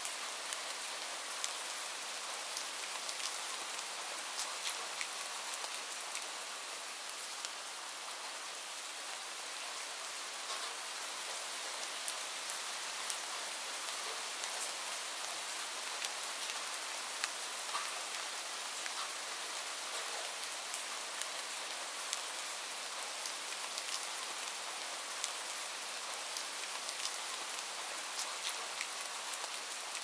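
Light rain falling steadily: a continuous even hiss with many small, separate drop taps scattered through it.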